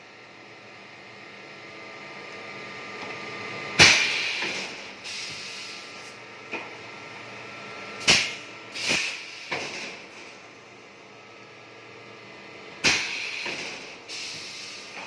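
Pneumatic PET bottle blow-moulding machine cycling: a hiss of compressed air slowly builds, broken by sharp bursts of air exhaust, each with a clunk and a short hissing tail, about four seconds in, twice around eight to nine seconds and again near thirteen seconds.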